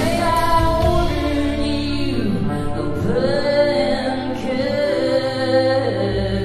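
Live performance of a song: a woman's voice holding long notes that slide from one pitch to the next, over sustained instrumental accompaniment.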